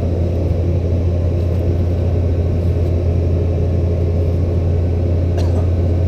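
Diesel engine of a CAT 304CR mini excavator running steadily with a low, even hum. There is a faint click about five seconds in.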